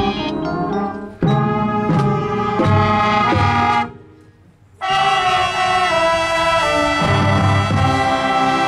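Marching band brass playing a field show: a run of sharp accented hits, a sudden cutoff about four seconds in that leaves a near-silent pause of under a second, then the full band comes back in on a loud sustained chord over low brass.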